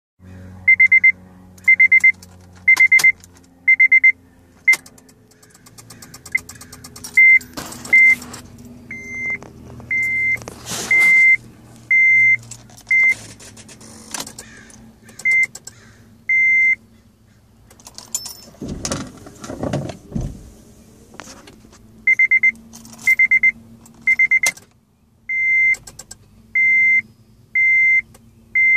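A 2006 Honda Civic's electronic warning chime beeps over and over at one high pitch, about once a second but unevenly spaced, with some short and some longer beeps and a few gaps. Scattered clicks and a louder two-second rumbling noise come a little past the middle, with no engine running. This is the no-start the owner traced to a weak battery.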